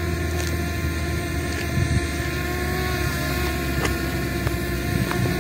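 Wind buffeting the microphone in a steady low rumble, with the even hum of a hovering SJRC F5S Pro Plus mini drone's propellers.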